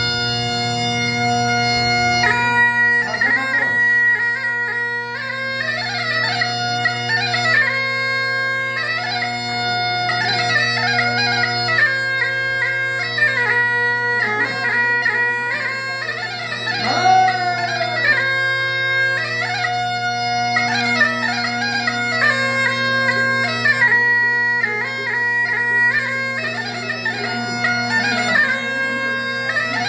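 Masakbeen, the Kumaoni bagpipe, playing a melody of quick, ornamented notes over a steady low drone. A single note is held at first, and the tune starts about two seconds in.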